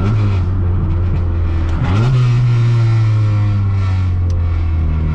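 Honda EF Civic's four-cylinder engine heard from inside the cabin through its new muffler with a silencer insert: a steady, raspy drone while driving. The pitch drops right at the start, dips and recovers about two seconds in, and steps up again near the end.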